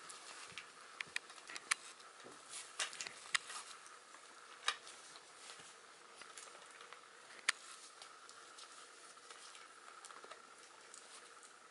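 Puppies chewing and tugging at a paper sheet on a small plastic toy car: scattered small clicks and crinkles of teeth on paper and plastic. They are busiest in the first five seconds, with a few sharper clicks among them.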